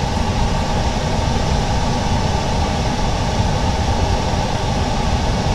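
Steady hum and hiss of background machinery, even and unchanging throughout.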